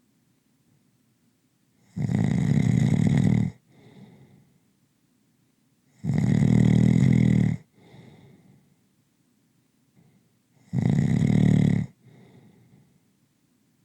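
Slow, rhythmic snoring: three loud snores, each about a second and a half long and about four seconds apart. Each is followed by a short, much fainter breath.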